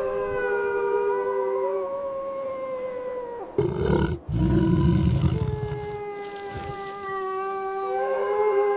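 Dogs howling in long, drawn-out notes, several pitches held at once and drifting slowly. A burst of low rumbling noise cuts in about three and a half seconds in and lasts a second or two.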